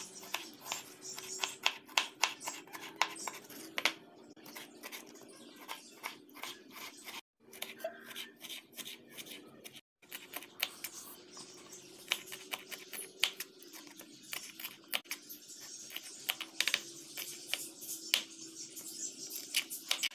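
Kitchen knife chopping tomato and green chillies on a plastic cutting board: a run of irregular, sharp taps as the blade strikes the board.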